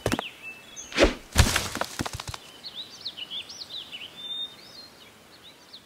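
A few sharp thumps and clatters over the first two seconds, then small birds chirping faintly in short, quick calls.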